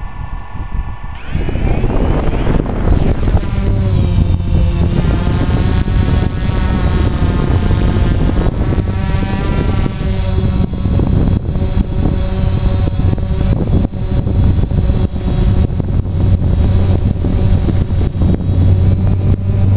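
DJI Phantom quadcopter's motors and propellers spin up about a second in and run at full, loud thrust as it lifts off and climbs. The propeller drone and motor whine shift up and down in pitch with throttle changes. It is heard close up from the GoPro mounted on the drone.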